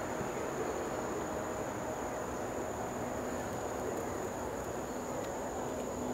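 Crickets trilling steadily in a summer night's ambience, a single unbroken high note, over a low even background rumble.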